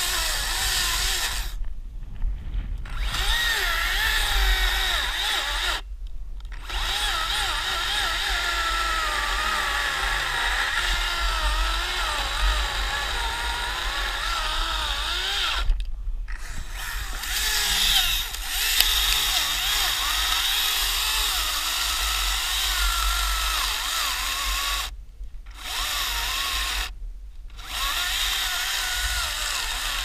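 Makita battery-powered chainsaw cutting through a tree trunk, its motor whine wavering in pitch as the chain loads up in the wood. The whine breaks off briefly several times.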